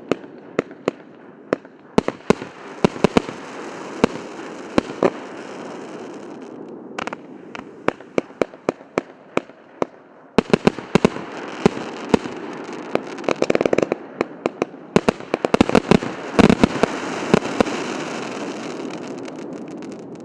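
Consumer fireworks cake ('Izumrud', 178 shots, 1.2- and 2-inch calibre) firing a run of shots: repeated sharp bangs of tubes launching and shells bursting over a continuous crackling hiss. The shots grow denser and louder from about halfway through, then thin out near the end.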